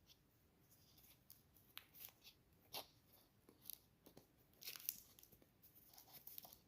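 Faint, scattered clicks and rustles of a plastic scoop being handled in a powder tub, the strongest about three and five seconds in.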